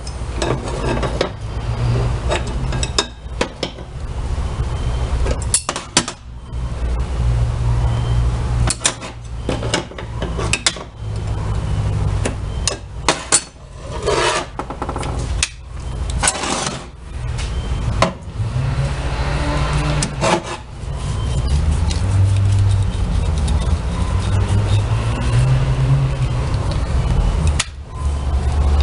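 Hand work on a washing-machine transmission taken out of the machine: metal parts clinking, knocking and scraping against each other in irregular strokes, over a steady low rumble.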